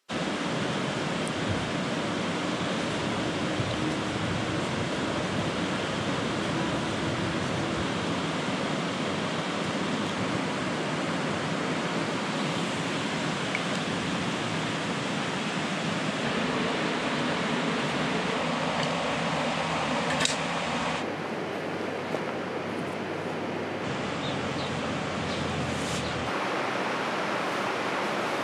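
Steady rushing of running water, even and unbroken, thinning out in the low end about two-thirds of the way through, with a couple of faint clicks near the end.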